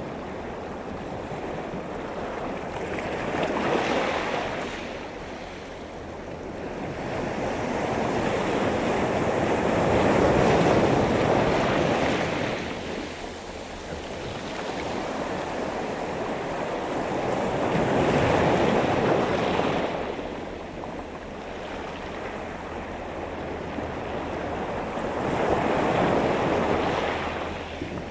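Sea waves breaking and washing over a pebble beach, the stones rattling in the surf. The sound swells and falls four times, roughly every seven to eight seconds.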